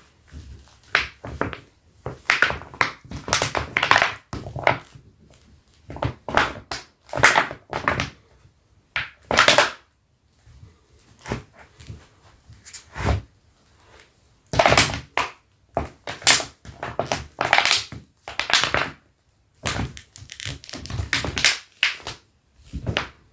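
Dr Martens leather boots rubbed against each other, giving loud squeaks and scuffs in irregular bursts with short pauses between them.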